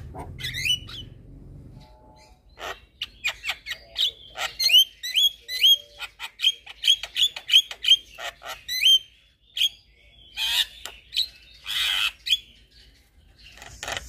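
Javan myna (jalak kebo) song: a quick run of short rising whistles mixed with clicks, about three a second, then two harsh rasping squawks near the end.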